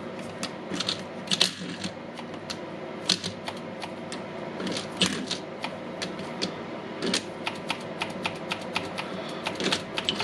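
Milwaukee M18 mid impact wrench clicking irregularly as it is worked. Its brushless motor only tries to start and does not run, a fault the repairer puts down to probably damaged Hall sensors.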